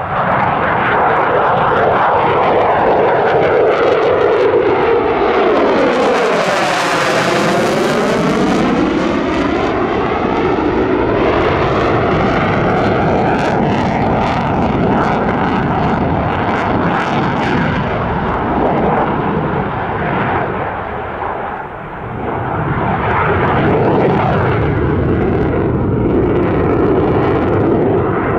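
F-16AM Fighting Falcon's Pratt & Whitney F100 turbofan in afterburner during a display, a loud, rough jet noise. About seven seconds in, as the jet passes closest, the sound brightens and a swooshing sweep dips down and rises again; it eases briefly about three quarters of the way through.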